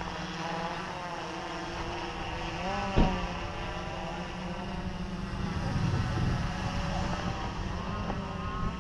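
Flip FPV Pro quadcopter's electric motors and propellers whining overhead, the pitch sliding up and down as the motors change speed. A sharp knock about three seconds in.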